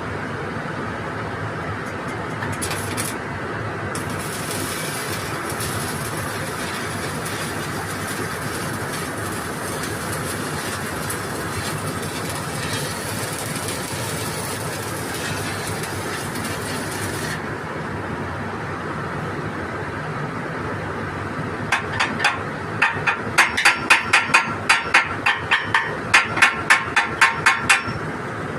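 A water pump's engine running steadily. Near the end comes a run of about twenty loud, sharp knocks, roughly three a second.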